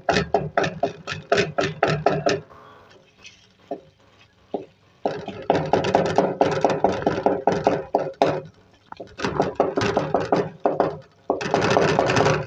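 Wooden spatula scraping and knocking rapidly against a metal karahi, about five strokes a second, as chicken and softened tomatoes are mashed and stir-fried. There are runs of strokes with a short lull between them.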